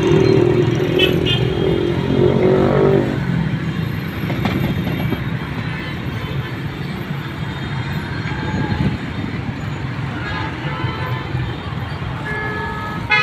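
Road traffic noise heard from a moving vehicle: a steady engine hum is strongest for about the first three seconds, then gives way to an even rumble of traffic and tyres.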